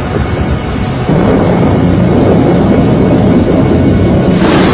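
Loud, low, rumbling tornado wind, growing louder about a second in, with a brief rushing whoosh near the end.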